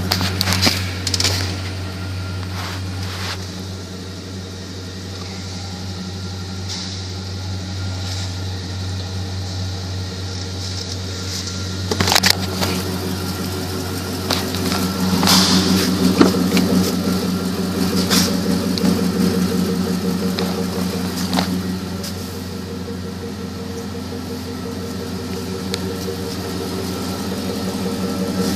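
2004 Chevrolet Avalanche's V8 engine idling with a steady low hum, heard from inside the cab, with occasional clicks and knocks.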